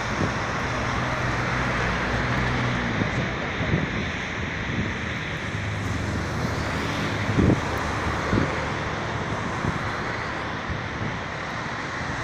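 Wind buffeting the microphone over a steady low hum of distant city traffic, with a couple of stronger gusts about seven and a half and eight and a half seconds in.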